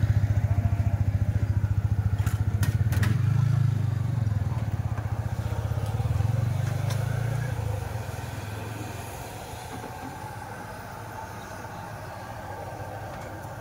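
A motor engine running close by with a low pulsing hum, loud for about eight seconds and then fading away. A few sharp metallic clacks come about two to three seconds in.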